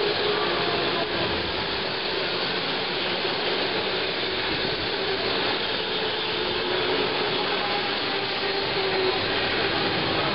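Go-karts running around an indoor track: a steady rushing noise of karts and tyres with a faint wavering whine underneath.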